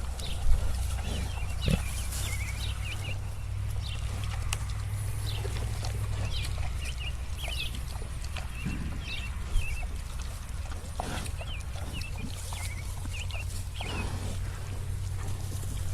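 Pen ambience: pigs grunting now and then, with a louder grunt about eleven seconds in and another near fourteen seconds. Many short high chirps run through it, over a steady low rumble that eases after about six seconds.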